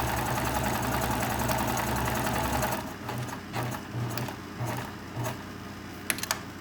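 Viking sewing machine running fast, stitching a decorative pattern, then stopping about three seconds in. A few short pulses of the machine follow, then two sharp clicks near the end.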